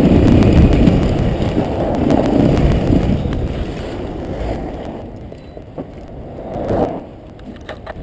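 Motorcycle riding over cobblestones: engine and road rumble with wind noise. It dies down about halfway through as the bike slows to a stop. After that the sound is much quieter, with a few light clicks and a brief louder noise near the end.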